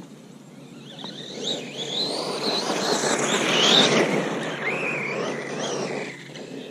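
Electric RC car driving past on a gravel track: a motor whine that rises and falls in pitch with the throttle, over the crunch of tyres on gravel. It grows louder from about a second in, is loudest around four seconds, then fades near six seconds.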